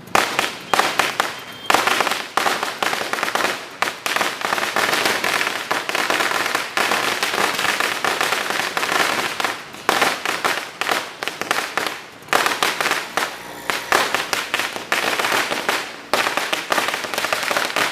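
A Sinturon ni Judas, a long belt of small firecrackers linked together, going off in a rapid, continuous string of sharp bangs, with a couple of brief lulls.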